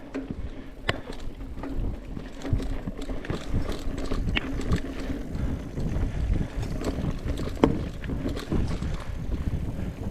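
Mountain bike being ridden over a dirt trail: a steady rumble from the tyres, with frequent small knocks and rattles as the bike goes over bumps.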